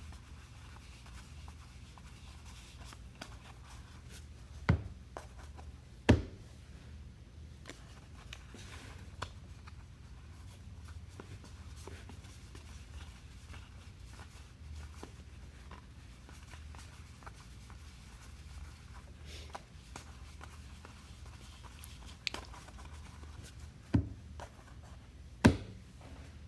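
Trading cards and packs being handled on a table: quiet rustling and sliding of cardboard, broken by four sharp knocks, two about a third of the way in and two near the end, as things are set down.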